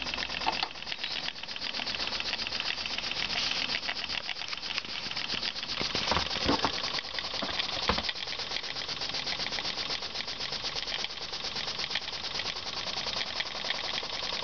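Small disc-valve live steam engine running steadily, its exhaust beating in a rapid, even clatter. A few louder knocks come about six to eight seconds in.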